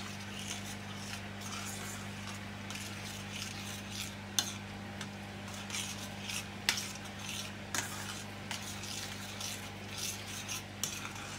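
A spoon stirring chicken stock into a roux in a stainless steel frying pan, scraping and clicking against the metal, with a sharp knock every second or two and a faint sizzle. A steady low hum runs underneath.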